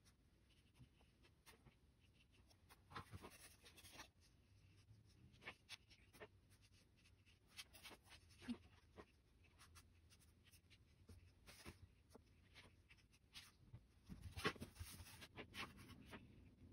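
Faint, scattered scratches and taps of a pen on paper, with near-silent gaps between and a short busier run of strokes near the end.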